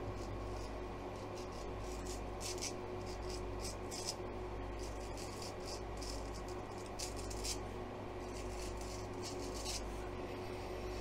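Straight razor scraping through lathered stubble in short strokes, in several clusters, over a steady low hum from a running clothes-dryer fan.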